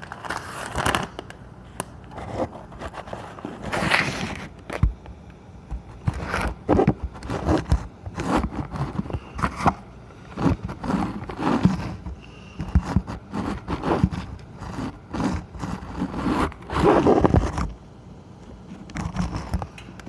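A crinkly plastic food packet being handled and crumpled close to the microphone, with irregular bursts of crackling and rustling and a short pause near the end.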